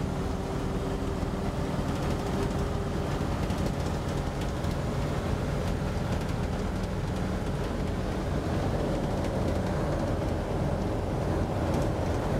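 Inside the cab of a 1941 Dodge military panel truck cruising at steady speed: its flathead six runs with a low, even drone under road and wind noise. The wind noise comes in past the driver's door, which needs adjusting.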